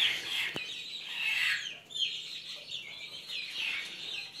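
Young chickens peeping: a steady chorus of short, high, downward-sliding peeps, with a single sharp click about half a second in.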